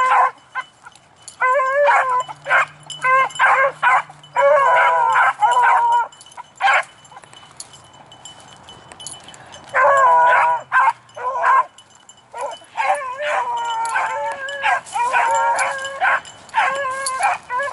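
Beagles baying on a scent trail, their calls coming in bursts with a lull about seven to nine and a half seconds in.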